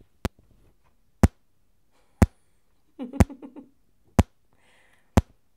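Repeated test-pulse clicks, about one a second, reproduced through a Royer ribbon microphone, which adds a lot of low end to each click.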